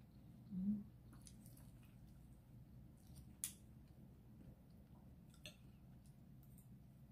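Faint eating sounds: a metal spoon and fork clicking and scraping on a plate of rice and chicken adobo, with a few sharp clinks, the clearest about halfway through, and quiet chewing. A brief low hum comes just under a second in.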